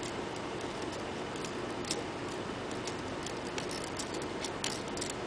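Scattered light metallic clicks and ticks, growing more frequent about a second and a half in, over a steady hiss. They come from a metal anodizing probe touching and shifting small titanium dental abutments in a plastic basket in the bath.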